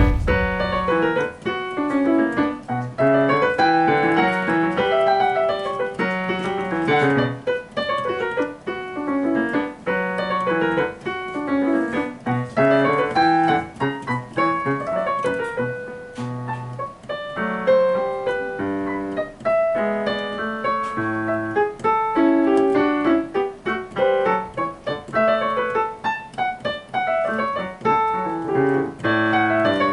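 Piano playing a bourrée: a lively two-part piece with a moving bass line under a running upper melody.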